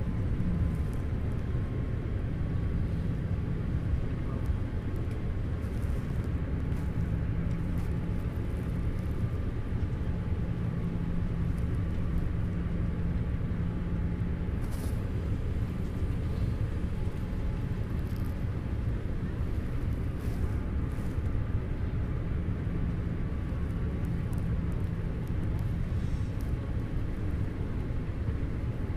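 Jet airliner's turbofan engines and rushing air heard inside the cabin, a steady drone with a low hum, on the descent to landing.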